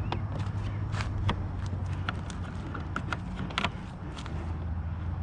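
Irregular sharp clicks and light knocks, about a dozen spread unevenly, over a steady low hum.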